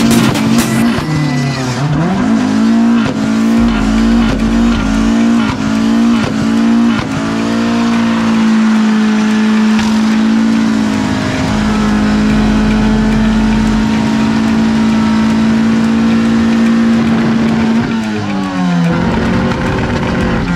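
Car engine in a burnout with its wheels spinning, the tyres squealing and hissing. The revs swing up and down rapidly for several seconds, then hold steady and high for about ten seconds, and drop away near the end.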